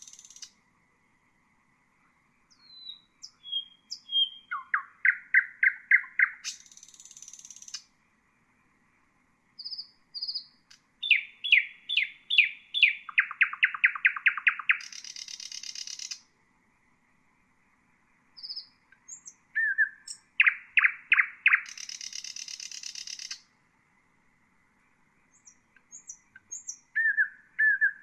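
Nightingale singing: four phrases of fast repeated notes, several ending in a high buzzy trill, with short silent pauses between the phrases.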